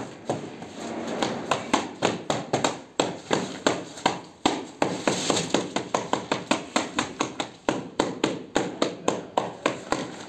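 Rapid, regular tapping, about four strikes a second: a float being beaten against sheets of glass mosaic tile to bed them into the tile adhesive.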